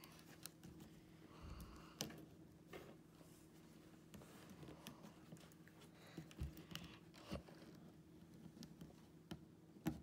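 Faint clicks and light rustling of jumper wires being handled and pushed into a solderless breadboard, a few small taps scattered through over near-silent room tone.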